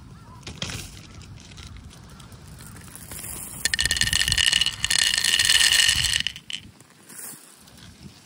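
Hard sugar-coated chocolate candies poured from a bag into a wooden bowl, a dense clattering rattle of many small pieces hitting the wood and each other. It starts about three and a half seconds in and lasts roughly two and a half seconds.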